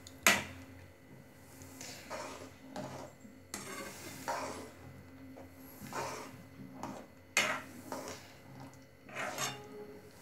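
Metal ladle scraping and knocking against a kadai as semolina is stirred into boiling water for upma, a stroke every second or so, the sharpest about a quarter second in and again a little past halfway.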